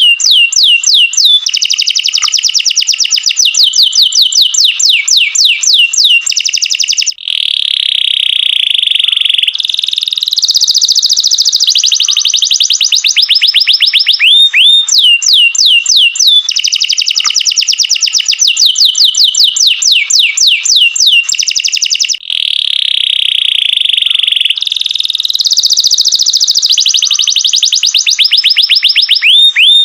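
Canary singing a loud, high, continuous song. It runs fast trills of repeated downward-sweeping notes, holds a steady whistled note, then breaks into buzzing rolls. The same sequence of phrases comes round again about halfway through.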